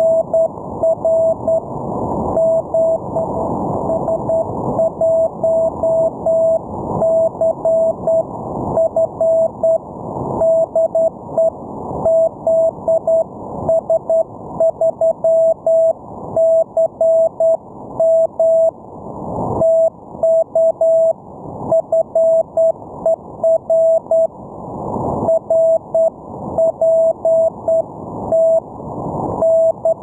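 Morse code (CW) signal received on an HF ham radio: a single steady mid-pitched tone keyed on and off in dots and dashes, sent by the other station in the contact. It sits over band hiss and static that swells in the gaps between characters.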